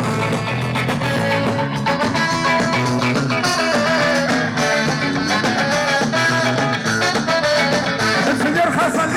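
Ska band playing a song live: guitars over a steady drum beat.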